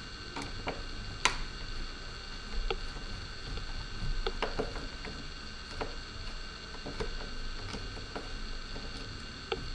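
Small hand screwdriver working the tiny motor screws out of a drone's plastic arms: scattered, irregular light clicks and ticks of the bit, screws and plastic being handled, over a steady faint hum.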